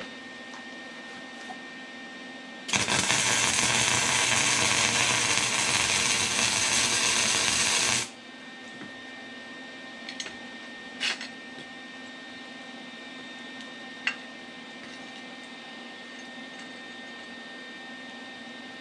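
Electric arc welding a railroad spike to a steel plate: a loud, steady hiss of the arc starts about three seconds in, runs about five seconds and cuts off sharply. A few short clicks follow later.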